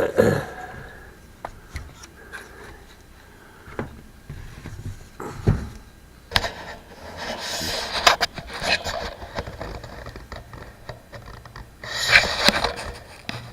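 Rubbing and scraping with scattered clicks and knocks as a radio chassis is handled and worked over, with a few longer scratchy stretches partway through and again near the end.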